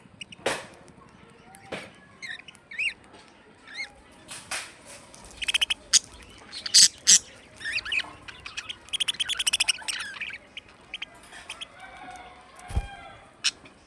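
Budgerigars chirping and squawking in short, irregular calls, with a run of warbling chatter about two-thirds through.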